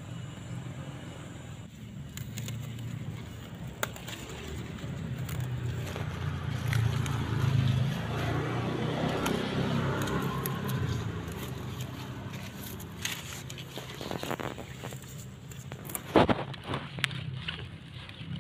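Low engine hum of a passing motor vehicle that swells in the middle and fades. Near the end come a few sharp snaps and rustling as the mustard green leaves are handled and picked.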